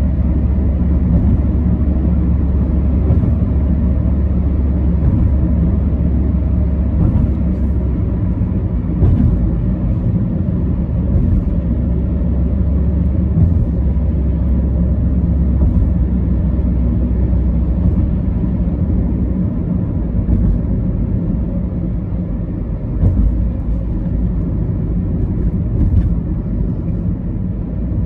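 Steady low rumble of road and engine noise inside a moving car's cabin while driving at speed.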